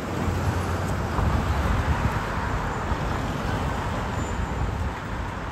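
Steady road traffic on a city street: an even hum of passing cars with a low rumble.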